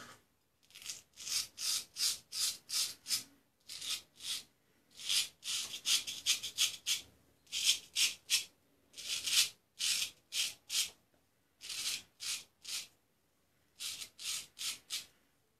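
Luigi Rizzo straight razor scraping through short beard stubble over shaving lather: short, crisp strokes in quick runs of several, with brief pauses between runs. The clear rasp is the blade cutting the stubble cleanly.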